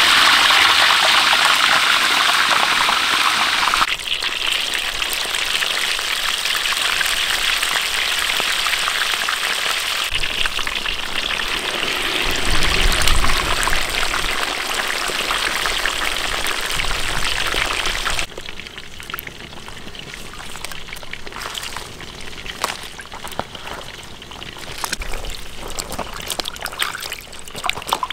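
Chickens deep-frying in a wok of hot oil: a loud, steady sizzle, strongest in the first few seconds. About two-thirds of the way through it stops suddenly, giving way to quieter water trickling and splashing as hands wash vegetables in a basin.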